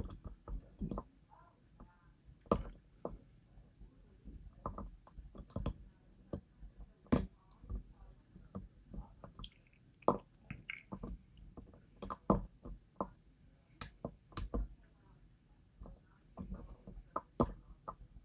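Lock pick and tension wrench working the pins of a DOM IX lock: irregular sharp metallic clicks and taps, a few a second with pauses between.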